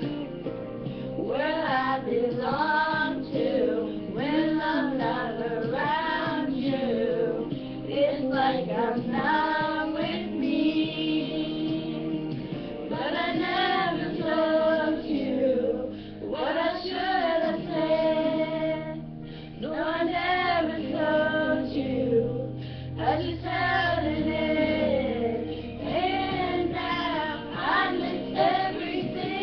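Three young girls singing a pop ballad together in phrases with short breaks between them, over steady accompanying music.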